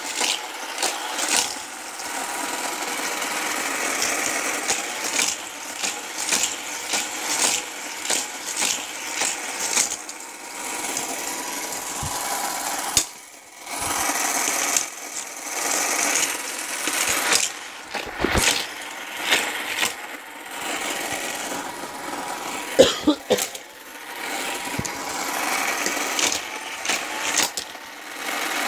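Hot Wheels Criss Cross Crash battery-powered booster running, its motorized wheels whirring steadily, with frequent plastic clacks and knocks on top. It dips out briefly twice.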